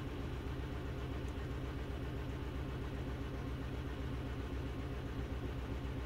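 2012 VW Jetta's 2.0-liter four-cylinder engine idling roughly, with a steady low pulse that is slightly uneven: cylinder one is misfiring constantly, a misfire traced to a faulty spark plug wire.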